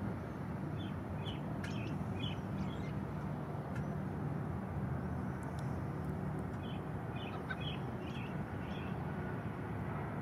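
Osprey calling in two quick runs of short, high chirps, one early and one in the second half, over a steady low background rumble.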